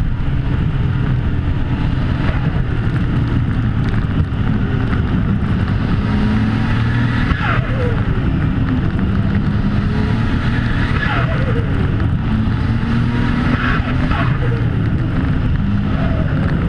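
1995 Nissan Skyline GT-R V-Spec's twin-turbo straight-six running hard at speed, heard from inside the cabin. Several falling whines come as the revs drop between corners.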